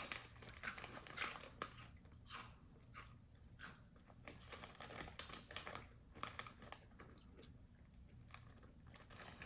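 A person chewing a crunchy corn cheese snack: faint, irregular crunches.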